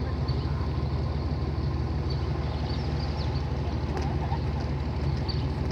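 Tractor engine running steadily, a constant low hum.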